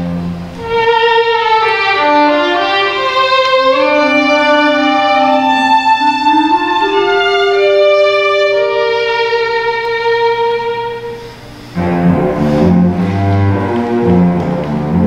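Instrumental passage for violin, clarinet and cello: long held notes moving slowly over and under each other. After a brief drop near the end, the cello comes in with low, repeated bowed notes.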